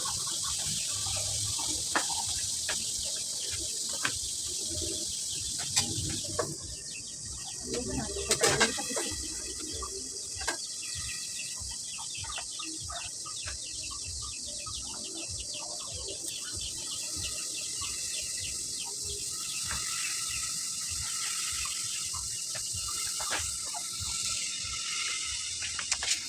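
Steady high-pitched insect chorus with scattered bird calls and a few short knocks.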